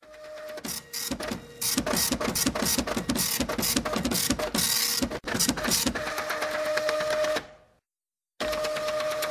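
Desktop printer printing: a fast, rattling clatter of the print mechanism for about five seconds, then a steady whirring hum that cuts out briefly near the end and starts again.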